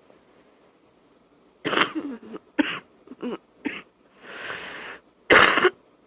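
A woman's wet, phlegmy cough: a run of four short coughs starting about a second and a half in, a drawn-out rasp in the middle, then one loud cough near the end.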